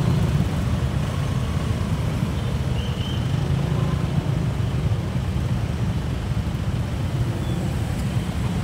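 Road traffic noise in slow traffic: a steady low rumble of idling motorcycle and car engines close by.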